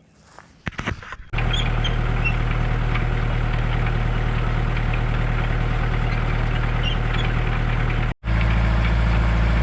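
A few light clicks, then a Kubota M6800 tractor's diesel engine running steadily at a constant speed. Near the end it breaks off for a split second and comes back slightly deeper in pitch.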